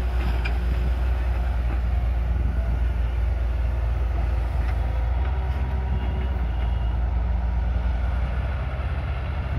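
Steady low diesel rumble of a Sumitomo hydraulic excavator working as it swings and loads sand into a dump truck.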